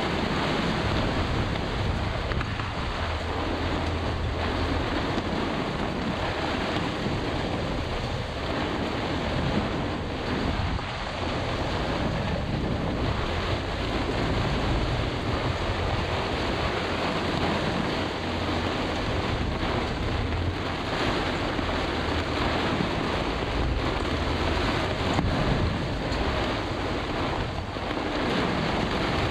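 Storm wind of a microburst buffeting the microphone, with rough, breaking water around the sailboat, a steady loud rush with no let-up.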